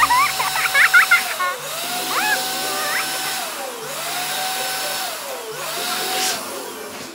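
Electric balloon pump running steadily as it inflates a large latex balloon. Its hum dips in pitch and recovers three or four times, with a few short high squeaks in the first three seconds.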